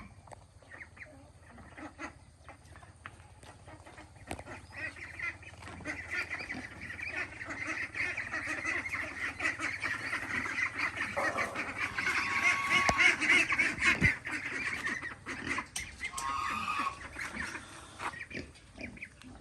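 A large flock of ducks calling all at once, a dense overlapping din that swells over several seconds to its loudest past the middle and then eases off.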